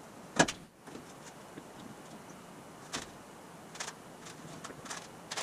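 Sheet-aluminum body panels clanking and tapping as they are handled and fitted against the car's frame: one sharp clank about half a second in, then scattered lighter taps.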